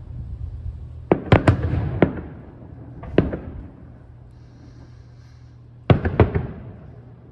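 Aerial firework shells bursting: a quick cluster of sharp bangs about a second in, a single bang a little past three seconds, and another cluster near the end, each trailing off in echo.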